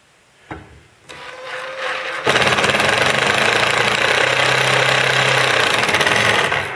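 Cordless impact driver driving a No. 14 flathead screw through a steel plate into wood. The motor spins up about a second in, then goes into rapid steady hammering for about four seconds as the screw seats, stopping near the end.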